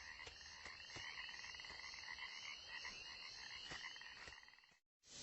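Faint chorus of frogs calling at night, many rapid pulsing trills overlapping, fading out near the end.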